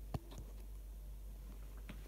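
A single sharp click just after the start, then a few faint clicks and taps, over a low steady hum.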